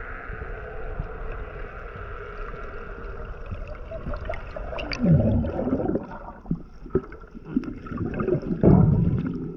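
Underwater sound through an action camera's housing: a steady hiss of water with faint scattered clicks, then two loud falling whooshes of water rushing past, about five seconds in and again near the end.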